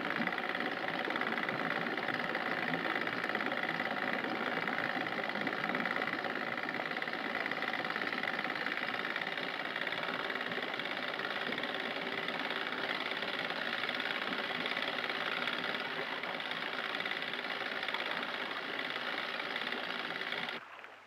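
Outboard boat motors running at a steady cruising speed, an even mechanical drone that stops abruptly near the end. Heard through an old film soundtrack with no deep bass.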